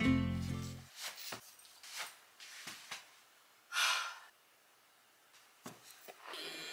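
Background music ends within the first second. Then a few faint knocks and a short breathy exhale about four seconds in, with a person's voice starting softly near the end.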